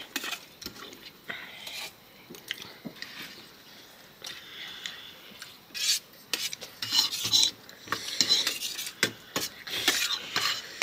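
A fork scraping and clicking against a dish as noodles are gathered up to eat, in short irregular strokes that grow louder and busier in the second half.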